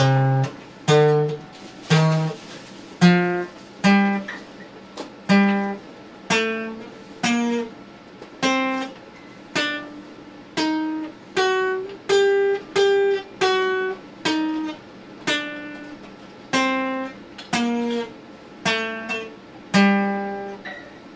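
Acoustic guitar played slowly, one strummed chord about every second, each left to ring and die away before the next, the chords changing as it goes.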